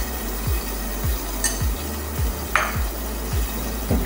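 A spatula stirring and scraping a thick tomato and chili-powder masala in a pot, over background music with a steady beat of about two kicks a second.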